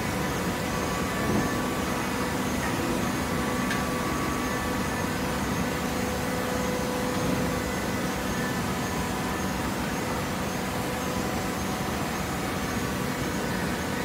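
TCM belt-fed automatic horizontal hydraulic baler running: a steady mechanical drone with a few held humming tones.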